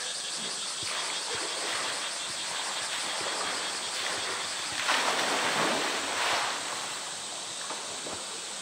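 A polar bear plunging into its pool: a loud splash of water about five seconds in that washes away over a second or so, over a steady rush of background noise.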